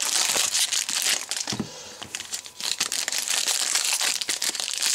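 Foil trading-card pack wrappers crinkling as they are handled and torn open by hand, with a quieter lull about two seconds in.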